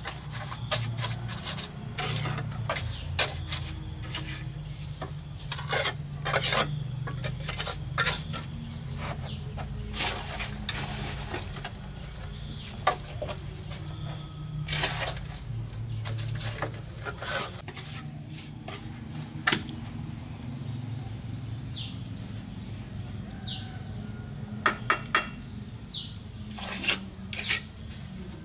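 Steel mason's trowel scraping and clinking against wet cement mortar and concrete blocks, in repeated irregular strokes. A steady high insect drone runs behind it, and a few short falling bird chirps come near the end.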